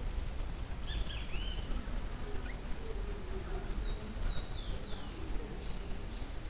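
Outdoor bird and insect ambience: an insect pulses steadily at a high pitch while small birds give a pair of arched whistled notes about a second in and a short series of falling whistles about four seconds in, over a steady low rumble and hiss.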